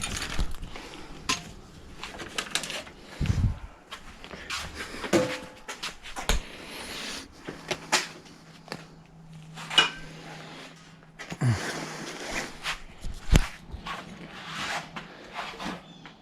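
Irregular knocks, clicks and clatter of objects being handled and moved around, over a faint steady low hum.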